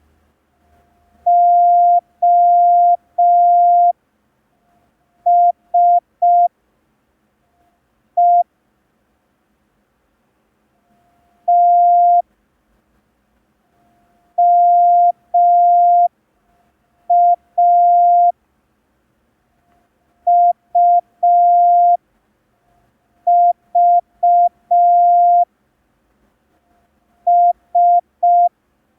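Morse code practice tone: a single steady beep keyed into short dots and long dashes, sending single letters one at a time with gaps of a second or two between them for the listener to copy.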